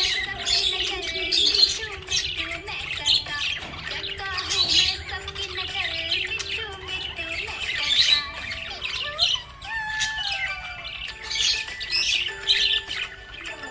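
Budgerigars chirping and chattering in rapid, high calls, over background music with a slow melody.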